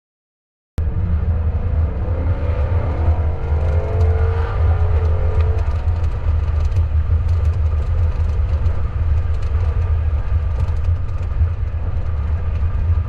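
Cabin sound of a 2024 Ford Mustang Dark Horse driving at speed with the windows down: heavy wind buffeting, with the engine note rising about two seconds in. From the middle on, irregular sharp slaps of the seatbelt flapping in the wind, which the owner calls pretty loud and takes for a design flaw.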